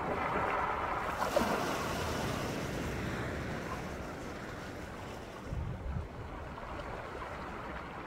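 Waves washing onto a beach. A wash swells in the first two seconds and slowly fades, and wind buffets the microphone a little past the middle.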